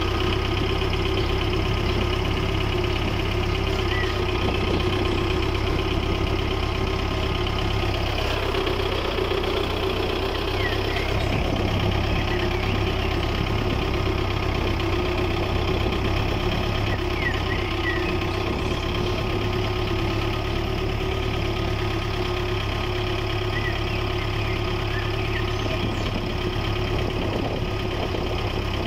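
Steady engine drone like a small diesel tractor idling, even in pitch and level throughout, with a few faint bird chirps.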